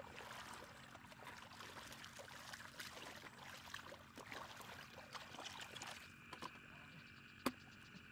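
Hands groping and swishing through shallow muddy water, a patter of small splashes and drips that stops about six seconds in. A steady high insect drone carries on after it, with one sharp click near the end.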